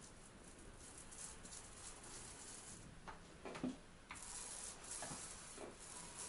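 Faint scratching of a paintbrush working paint along a window reveal, with a few soft knocks in the second half.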